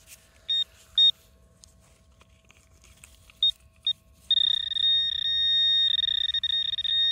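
Metal detector pinpointer probe beeping: four short high beeps as it passes near a buried target, then a steady continuous tone from about four seconds in as it sits right on the metal.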